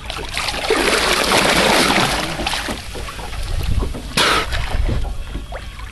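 Dolphin splashing in the water right beside a boat for a couple of seconds, followed by a single short, sharp rush of sound about four seconds in as it surfaces at the hull.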